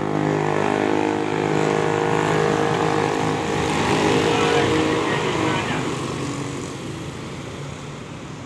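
Tour bus passing close by with its engine running loud, then fading over the last few seconds as it moves away.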